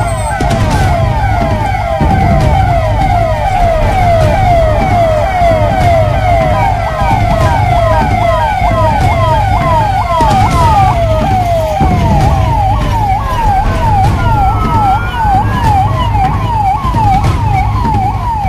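Several police vehicle sirens sounding together in a fast yelp, rising sweeps repeated about three times a second and overlapping, over the low rumble of the convoy's engines and traffic.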